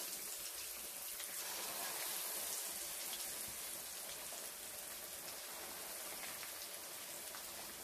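Spice- and gram-flour-coated fish pieces deep-frying in hot oil just after going into the pan: a steady crackling sizzle of vigorously bubbling oil.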